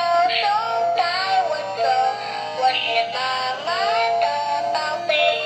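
Battery-powered toy bus playing one of its built-in songs: a continuous electronic tune with a synthesized singing voice, its pitch sliding up and down.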